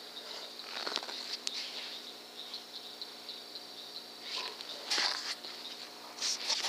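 Steady high trilling of night insects, with a few short bursts of rustling about a second in, around four to five seconds in and near the end.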